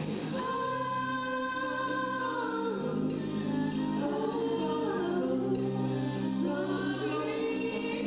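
Music with choir-like singing: several voices holding long notes together, the chord changing every second or two.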